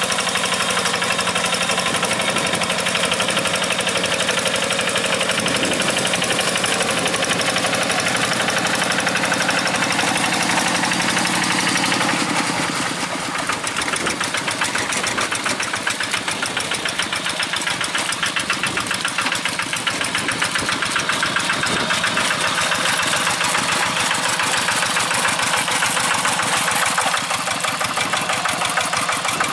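Single-cylinder diesel engine of a two-wheel hand tractor, chugging steadily under load as its cage wheels work through paddy mud. The tone shifts and dips slightly about twelve seconds in.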